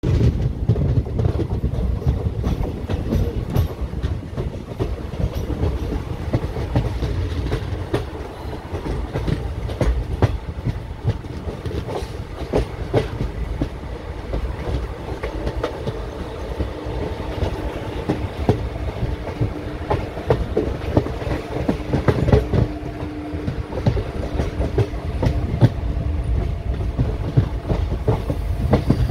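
Passenger train coaches rolling along the track, a steady low rumble with the wheels clattering over rail joints. Faint steady whining tones rise in over the second half.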